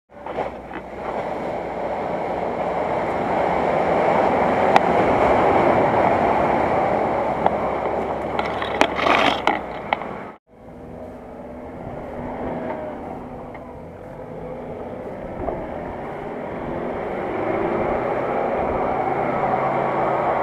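Off-road SUV engine working under load as the vehicle drives through deep mud, with a brief break about ten seconds in and pitch rising near the end as it revs.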